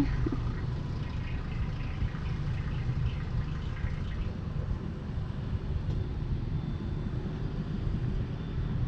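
Mercury 60 hp outboard running steadily as the skiff moves off, a low even drone mixed with wind and water noise.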